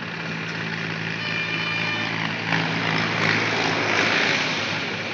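High-pressure washer running and spraying a water jet onto a tractor: a steady hiss of the spray over a low, even machine hum.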